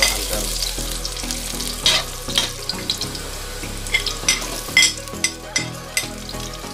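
Chopped garlic and onions sizzling in hot oil in a steel wok as they are sautéed, with a steady hiss and many sharp clicks and taps through it.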